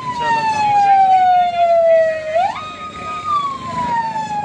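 Emergency vehicle siren wailing. Its pitch slides slowly down, jumps quickly back up about two seconds in, holds briefly, then slides slowly down again, over the low noise of traffic.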